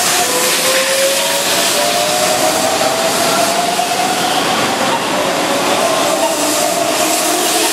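Keihan 7200-series electric train running past the platform: loud rolling noise with a hiss, and a motor whine that rises slowly in pitch as the train gathers speed.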